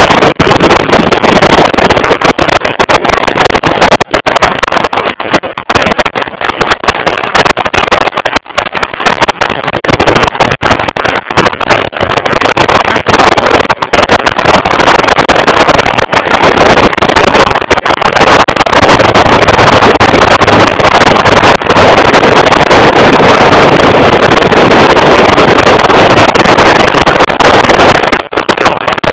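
Heavy wind noise on a motorcycle-mounted camera's microphone at road speed, mixed with the motorcycle engine running. The noise is loud and steady with frequent brief dips.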